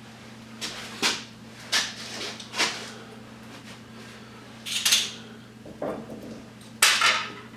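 Scattered sharp clicks and clatters, about eight, of hands and tools handling electrical plugs and their brass pins, loudest about five and seven seconds in, over a steady low hum.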